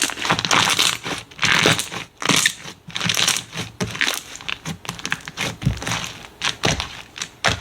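Slime being squeezed and pressed by hand, giving a run of irregular crackling, squishing bursts.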